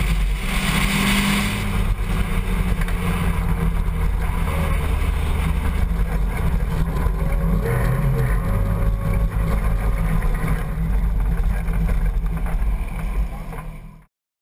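Open-cockpit Mazda-engined MEV race car's engine running, heard from a roll-cage camera with wind noise on the microphone. The wind hiss is heaviest for the first couple of seconds, then eases, leaving a steady engine drone as the car rolls along the pit lane; the sound fades out near the end.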